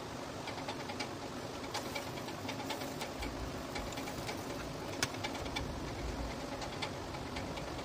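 Light scattered clicks and taps of a soldering iron and the opened plastic Bluetooth speaker case being handled, with one sharper click about five seconds in, over a steady background hiss.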